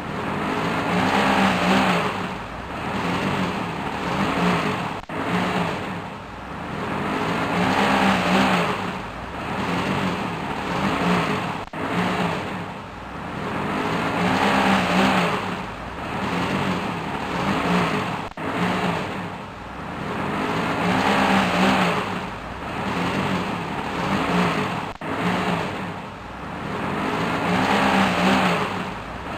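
Truck engine revving again and again in rising and falling surges, the sound of a truck stuck in mud. The same few-second stretch repeats about every six and a half seconds.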